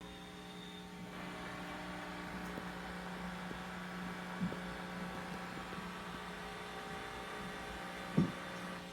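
Steady electrical hum with a faint tick about halfway through and a single thump near the end.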